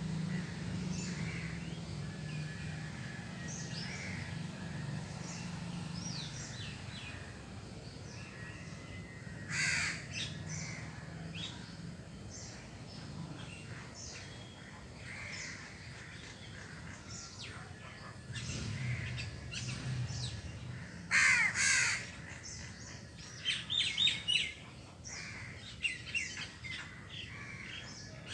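A crow cawing: two loud caws, one about ten seconds in and one about twenty-one seconds in, followed by a run of shorter calls. Small birds chirp faintly throughout.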